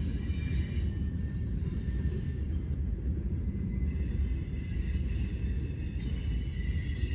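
Freight train cars rolling past: a steady low rumble of steel wheels on rail. Faint, high thin squealing tones come and go above it, wheel squeal from the cars taking the curve.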